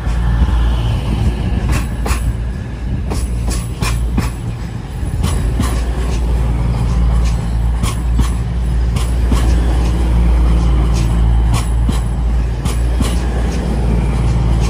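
EMR Intercity Class 222 Meridian diesel multiple unit moving past at the platform, its underfloor diesel engines giving a loud, steady low drone with scattered sharp clicks.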